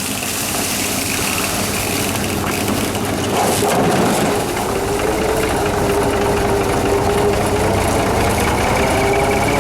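A vehicle engine running and pulling as it tows another machine to get up speed for a tow-start, its pitch climbing a little about four seconds in, over a steady rough rumble.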